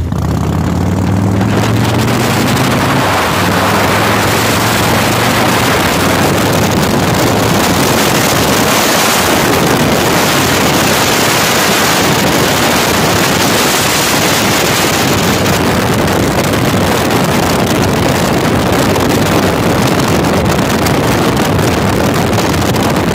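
Motorcycle engine rising in pitch as it pulls away over the first few seconds, then mostly covered by loud, steady wind rushing over the microphone at road speed.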